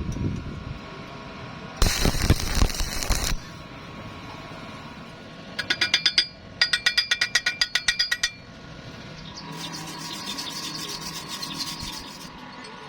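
Workshop metalworking tool sounds: a short burst of harsh noise, then a quick run of rapid clicks, about eight a second, then a steady hiss for a few seconds.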